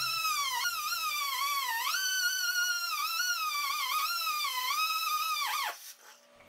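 Angle grinder with a cut-off wheel cutting 1/2 inch steel bar stock: a high whine that wavers up and down in pitch as the wheel bites into the metal and eases off. Near the end the pitch drops quickly as the grinder is switched off and spins down.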